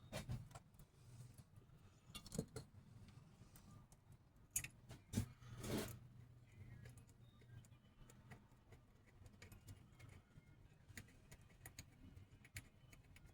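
A few light metallic clinks and handling knocks of starter parts being worked by hand, the loudest cluster about halfway through, over a faint steady low hum.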